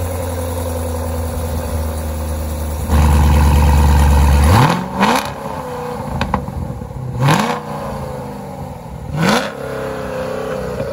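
2017 Corvette Stingray's 6.2-litre LT1 V8 exhaust, running through long-tube headers with the catalytic converters deleted. It runs steadily, gets louder about three seconds in, then is revved three times about two seconds apart, each blip rising in pitch and falling back.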